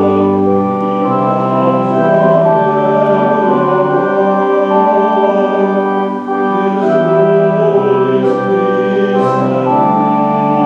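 Church organ playing slow, sustained chords, with deep pedal bass notes that come and go.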